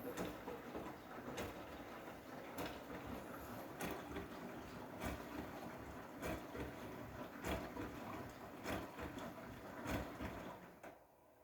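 Washing machine running a wash cycle with blankets in the drum: a steady churning with a soft knock about every 1.2 seconds as the drum turns, stopping about a second before the end.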